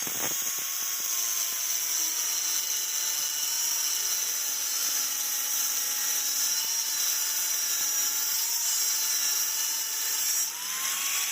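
A small high-speed electric power tool running steadily: a thin motor whine holding nearly level, sagging slightly in pitch and rising again near the end, over a bright hiss.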